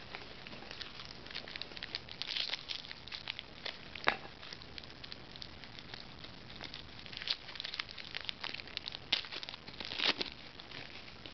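Foil trading-card pack wrappers crinkling and crackling as they are handled and opened, a dense run of irregular sharp crackles with a louder snap about four seconds in and again near the end.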